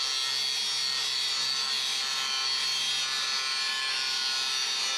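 DeWalt 60-volt cordless angle grinder running steadily at full speed, its disc grinding on an aluminum square-tube shoring beam.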